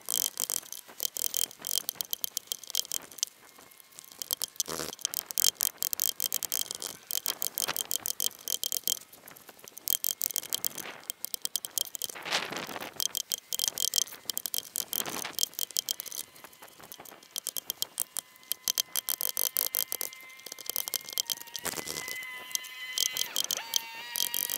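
Steel chisel pushed by hand and levered in a timber post's mortise, paring and breaking out wood fibres: rapid crackling and splintering clicks with scraping, coming in spurts, with one heavier knock about five seconds in.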